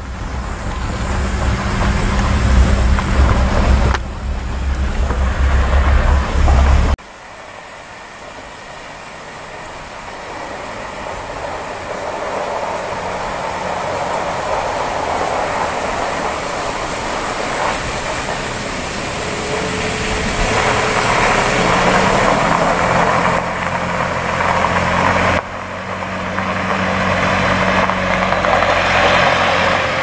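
Vehicle driving on an unpaved forest road, its engine running with a strong low rumble. About seven seconds in the sound drops abruptly to a quieter, steady drive noise that slowly grows louder, with another sudden change near the end.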